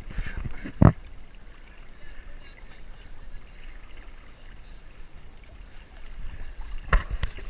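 River current flowing around a canoe, a steady wash of water, with one sharp knock about a second in and a few more knocks near the end.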